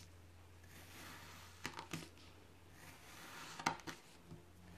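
Knife blade slicing down through a molded block of kinetic sand and tapping the hard tabletop beneath. There are two strokes about two seconds apart, each a quick pair of sharp taps, and a lighter tap near the end.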